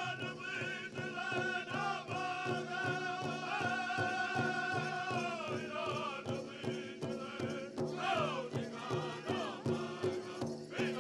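Powwow drum group playing a Chicken Dance song: several drummers strike a big drum in a steady, even beat while a group of high-pitched voices sings in unison over it. Twice near the end the singing slides down in falling phrases.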